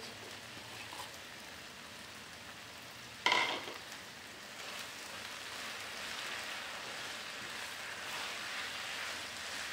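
Kway teow noodles and shredded cabbage sizzling in a nonstick wok as they are stir-fried with a silicone spatula, the frying and stirring noise building up over the second half. A single sharp clink about three seconds in.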